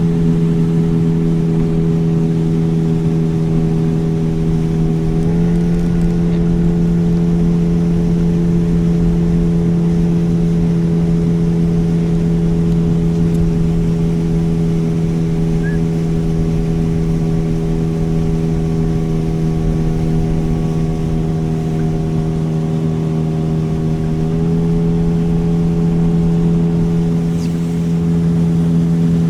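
Motorboat engine running steadily under way, its pitch stepping up slightly about five seconds in and dropping back about five seconds before the end, over a rushing wash of water.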